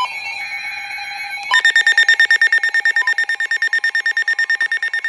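A short buzzy burst of weather-radio alert data, then about a second and a half in a loud, rapid electronic alarm beeping starts and keeps going. It is a weather alert radio's alarm sounding as a new warning is broadcast.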